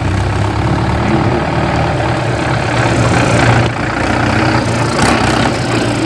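Tractor diesel engines running steadily, as a Mahindra Yuvo 415 DI tractor pulling a loaded trolley comes up close.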